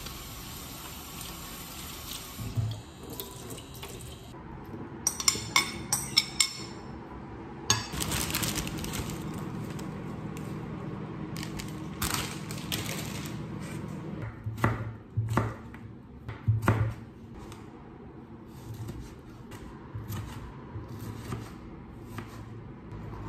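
Kitchen tap water running into a bowl while kidney beans are rinsed, with dishes clicking against the sink, then a second stretch of running water. Later a knife knocks on a plastic cutting board: a few heavier knocks, then lighter taps.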